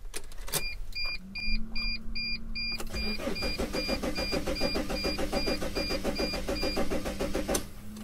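Mercedes-Benz Sprinter T1N diesel engine cranked on the starter without firing, a turns-over-but-no-start fault. A steady whine comes in about a second in, the rhythmic cranking runs from about three seconds in, and it stops shortly before the end. A dashboard warning chime beeps rapidly through most of it.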